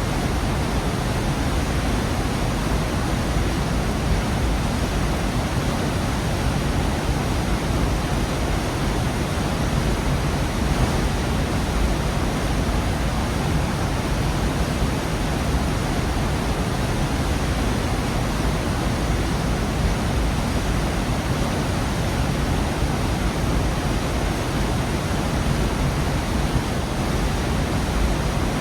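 Waterfall in a rocky gorge: a steady, unbroken rush of falling water, heaviest in the low end.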